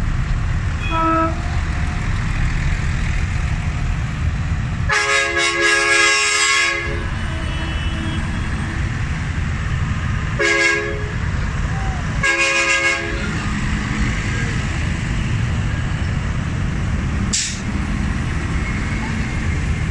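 A line of modern farm tractors driving slowly past, their diesel engines running steadily. A vehicle horn sounds three times: one long blast about five seconds in, then two shorter toots a few seconds later.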